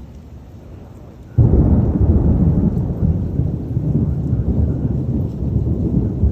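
A close thunderclap cracks suddenly about a second and a half in and rolls on as a loud, low rumble. Before it, a steady rain hiss.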